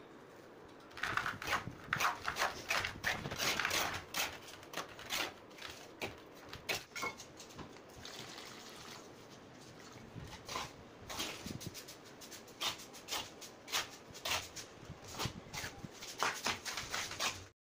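Dry cement and sand being stirred and scraped by hand in a pan, a gritty rustling in quick irregular strokes. About eight seconds in, water is poured into the mix with a steady hiss, and the wet mix is then worked by hand with irregular scraping; the sound cuts off suddenly near the end.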